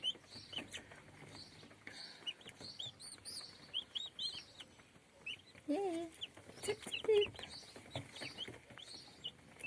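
A brood of day-old white broad-breasted turkey poults peeping: many short, high chirps overlapping continuously.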